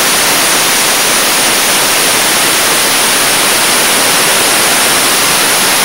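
Dustless blaster nozzle firing a wet abrasive stream against an aluminum boat hull for surface prep: a loud, steady, high-pitched hiss.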